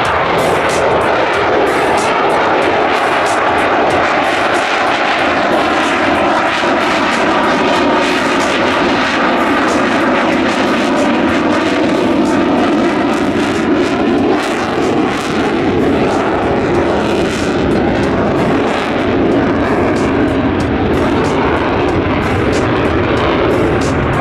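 F-35A Lightning II's Pratt & Whitney F135 turbofan running loud and steady in flight, with faint tones in it that slowly rise and fall as the jet moves.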